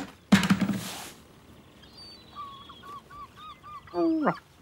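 Cartoon sound effects: a loud thump, then a quick run of short chirping notes, then a loud honk that falls in pitch.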